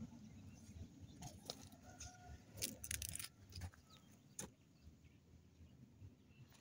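Faint outdoor ambience: a low rumble with scattered sharp clicks and crackles that cluster about halfway through, plus one more click a little later.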